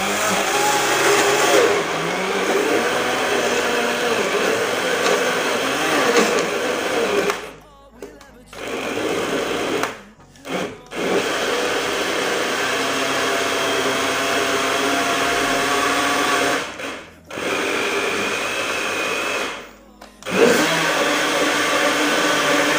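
Electric countertop blender grinding peeled bananas into a pulp. The motor is stopped and restarted about five times, with pauses of about a second between runs.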